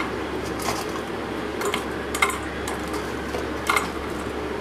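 Stainless steel tiffin containers clinking as fried vegetable balls are dropped into them by hand: four or so sharp metallic clinks with a short ring, over a steady low background hum.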